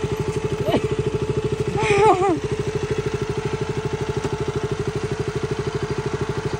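KTM motorcycle engine idling steadily with an even, rapid putter, no revving. A brief wavering voice-like call comes about two seconds in.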